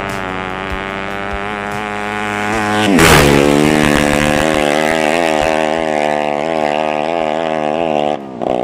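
Racing motorcycle engine running hard at high revs, its pitch wavering slightly. About three seconds in it is at its loudest, with a sharp dip and recovery in pitch, and it drops away briefly near the end.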